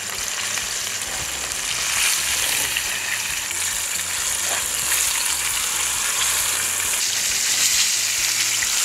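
Flour-dusted fish fillets frying in hot oil in a pan: a steady sizzle and crackle of bubbling oil.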